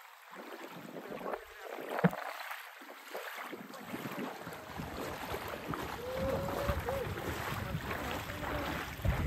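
Small lake waves lapping at the shoreline, with one sharp click about two seconds in. Wind starts buffeting the microphone with a low rumble from about halfway through.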